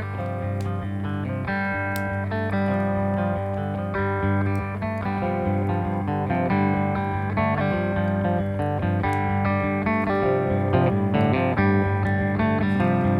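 Instrumental desert-blues guitar music: slow, repetitive plucked guitar notes over a steady low bass, growing gradually louder.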